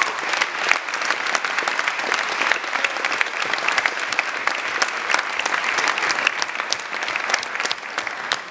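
Audience applauding: many people clapping together in dense, steady applause that eases slightly near the end.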